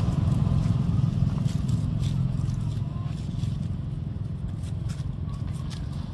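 Low engine rumble of a motor vehicle, fading steadily as it moves away, with faint scratches and rustles of dry leaves close by.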